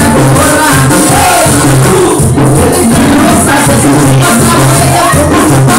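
Loud dance music played over a party DJ sound system, with a repeating bass pattern and a melody line running over it.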